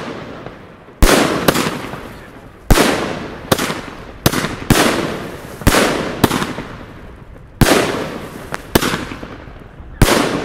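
Pangu 'Brasilian Box' 114-shot consumer fireworks cake firing: about a dozen sharp bangs at uneven spacing, some in quick pairs, each trailing off in a fading hiss.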